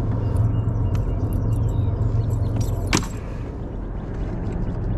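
Steady low rumble of wind buffeting the camera microphone, with one sharp click about three seconds in.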